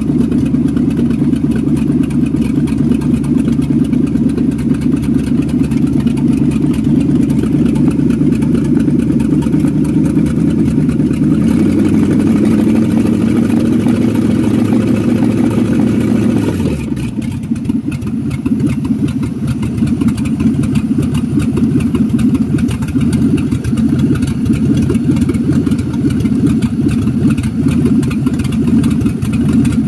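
1962 Mercury Comet's engine idling steadily, running off the battery alone with its new single-wire alternator not yet connected. Its note changes around the middle, with a brief drop in pitch about seventeen seconds in.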